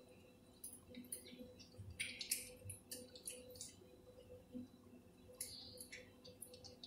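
A cat eating wet food off a small spoon held out by hand: faint, scattered little clicks and wet smacks of licking and chewing, over a faint steady hum.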